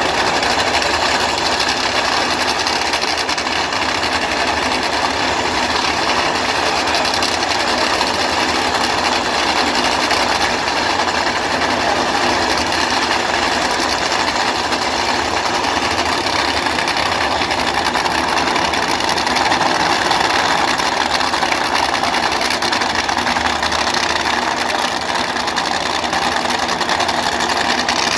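Nitromethane-burning supercharged V8 engines of NHRA Funny Cars idling on the starting line, a loud, steady, rapid chatter with no revving.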